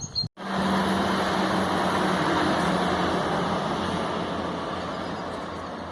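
Vehicle going by: a steady engine hum under a rushing noise that starts abruptly and slowly fades away.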